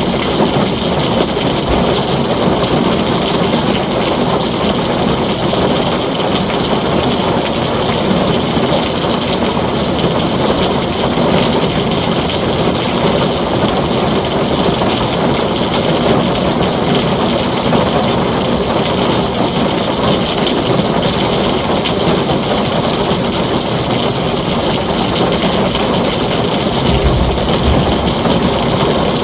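Heavy rain falling steadily on a tin roof, with a short low rumble near the end.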